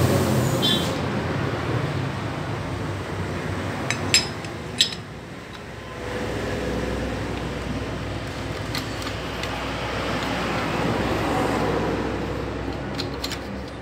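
Steady rumbling background noise that dips briefly and swells again, with a few sharp metal clinks as the clutch pressure plate and plates are handled and fitted onto the clutch basket.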